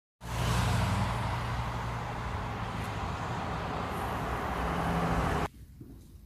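Road traffic: cars driving past, a steady rush of tyre and engine noise that swells again near the end and cuts off suddenly after about five seconds, leaving quiet outdoor ambience.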